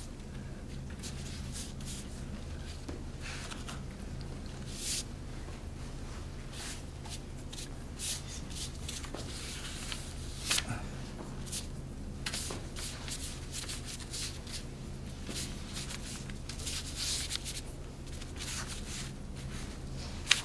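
Chinese brush stroking and scraping across paper in irregular short swishes, over a steady low hum.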